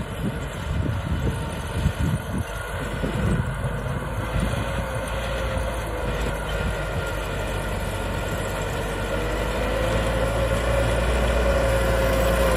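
Small crawler bulldozer's diesel engine running steadily as it pushes a load of soil with its blade. A low rumble, with a whine that dips and then climbs again in the second half. Irregular knocks and clatter in the first few seconds.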